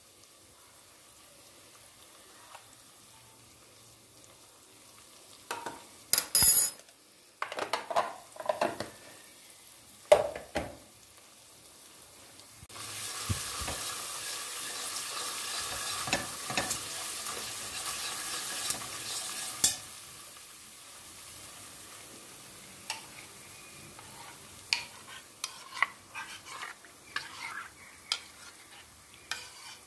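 Cooking in a pan: a few sharp knocks of a utensil against the pan, then about seven seconds of sizzling, then light stirring clinks of a spoon against the pan.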